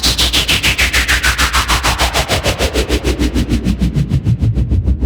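Synthesized downlifter sound effect: a noise sweep falling steadily in pitch from high to low, chopped into rapid even pulses about eight times a second over a pulsing low bass, its top end fading out near the end.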